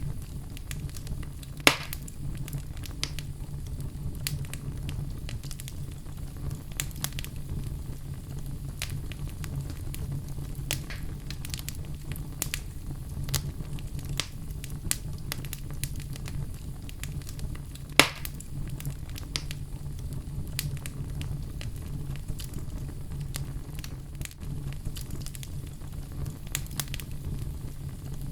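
Outdoor fire burning with a steady low roar and frequent small crackles, and two loud sharp pops, one about two seconds in and one about eighteen seconds in.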